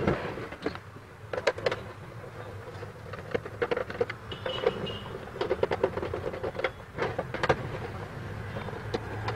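Clicks, knocks and rubbing of an induction cooktop's plastic housing as it is turned over and handled on a bench by hand, with a steady low hum underneath.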